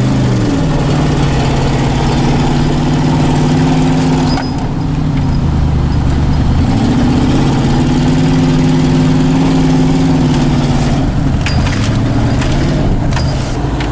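1989 Ford F-150 pickup's engine revving: it climbs at the start and holds high revs, drops back about four seconds in, climbs and holds again from about seven seconds, then eases off near the end.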